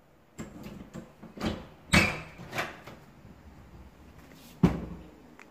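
A string of clunks and knocks as a door is handled and opened, the loudest about two seconds in, with another sharp knock about a second before the end.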